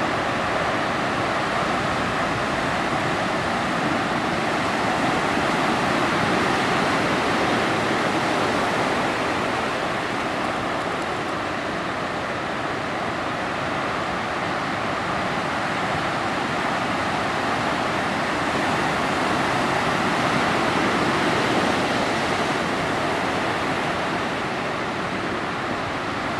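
Atlantic Ocean surf: waves breaking and washing in as a steady rush of water noise, swelling a little louder about a third of the way in and again past the middle.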